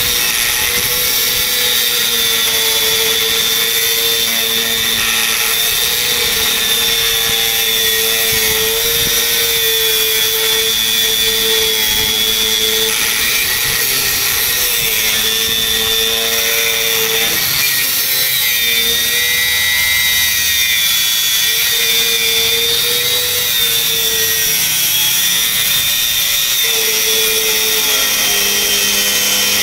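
HL Premier DG 850 4-inch angle grinder cutting through a 25 mm solid steel bar with a cut-off disc: a steady grinding whine that wavers slightly in pitch, with a few brief dips.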